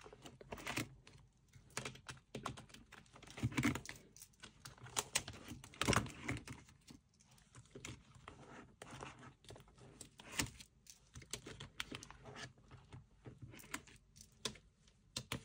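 Irregular light clicks, taps and rustles of small objects being handled, with a few sharper knocks.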